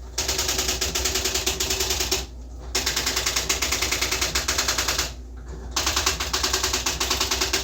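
Electronic typewriter printing a stored label automatically from its memory: a rapid, even rattle of type strikes in runs of about two seconds, broken twice by short pauses, about two and five seconds in.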